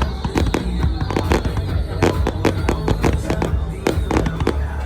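Fireworks going off in quick succession, several sharp bangs and crackles a second, over loud music with a heavy bass.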